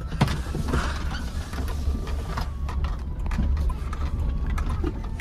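Small car driving slowly over a rough, broken dirt track: a steady low engine and road rumble with scattered knocks and rattles from the body and suspension.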